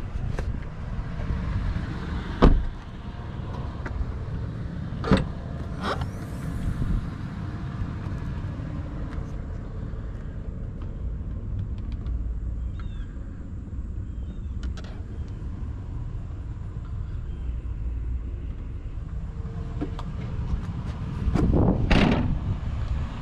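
Steady low rumble of wind and handling on the microphone, broken by sharp thumps: one about two and a half seconds in, two more around five and six seconds, and a longer, louder knock near the end, the sounds of the SUV's doors and liftgate being shut.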